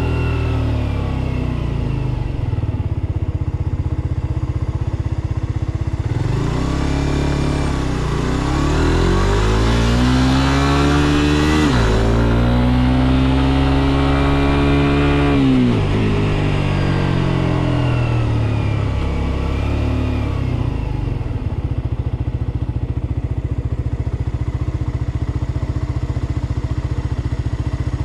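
Suzuki GSX-R125's single-cylinder four-stroke engine at a steady low rhythm, then pulling away about six seconds in and revving up through the gears with wind rushing past. About sixteen seconds in it eases off and winds down, settling back to a steady idle for the last several seconds.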